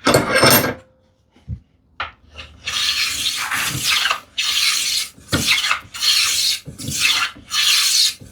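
Hand plane (No. 5) taking repeated strokes along the edge of a wooden slat, a short scrape at the start and a small knock, then about five or six even rasping passes roughly one a second: cutting a small chamfer so the tambour slat won't catch in its groove.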